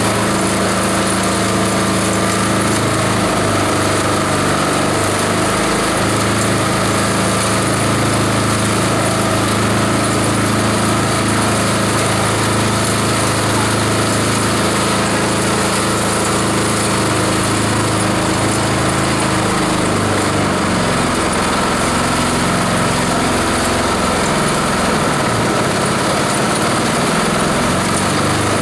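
Multi-purpose chopper/shredder running steadily with a loud, constant hum and grinding as dry fibrous material is fed into its hopper and shredded. Its low hum wavers in pitch in the last several seconds as the load changes.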